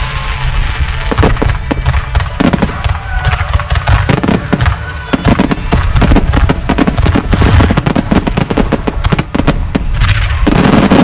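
Aerial fireworks going off in a dense, rapid barrage: many sharp cracks and booms in quick succession over a continuous low rumble, with a brief, even louder cluster near the end.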